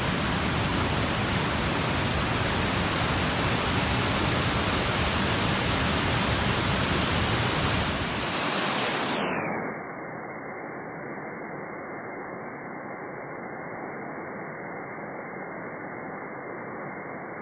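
A waterfall rushing steadily. About halfway through, the sound quickly turns muffled and quieter: its high hiss and deep rumble fall away, leaving a dull, even rush.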